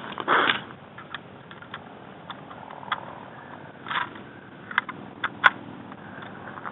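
A Mosin-Nagant bolt-action rifle being handled and loaded: a brief rustle of handling noise, then a string of sharp, irregular metallic clicks from its bolt and action, the loudest near the end.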